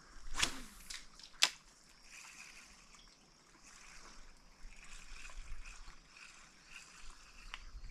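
Water trickling and lapping at the edge of a tidal pool as the tide comes in. A brief falling swish comes about half a second in, and a sharp tap about a second and a half in.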